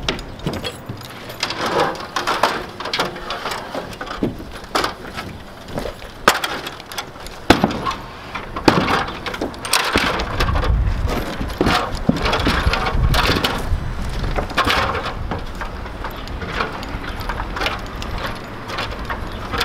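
A stepladder being handled and set up against wooden wall framing: irregular knocks and clatters of wood and ladder. From about halfway on there is a low rumble under them.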